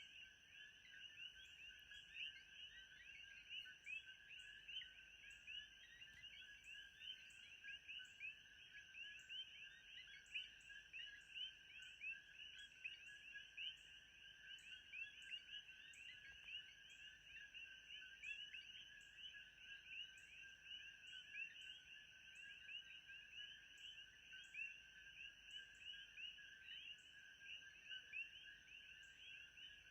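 Faint ambient background of a dense chorus of chirping animal calls, with a steady high tone pulsing about once a second above it.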